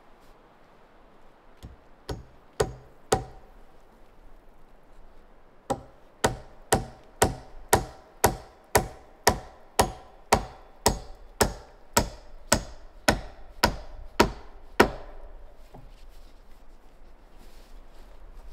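Hammering on a wooden beam: three blows, then after a pause a steady run of about twenty strikes, roughly two a second, each with a short ringing tail.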